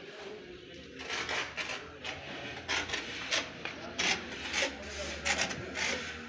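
Hand trowel scraping and spreading cement mortar across the back of a ceramic wall tile, in a series of short, uneven scraping strokes, two or three a second, starting about a second in.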